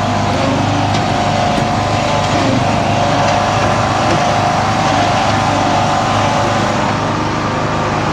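Riding lawnmower engine running steadily, with a steady whine above the engine note.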